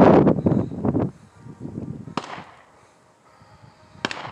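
Handgun shots in the open. A loud shot at the start echoes away over about a second, a fainter shot comes about two seconds in, and another sharp crack comes near the end.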